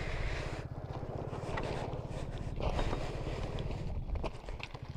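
A motorcycle engine idling steadily with an even low pulse. A few footsteps crunch on loose gravel and stones.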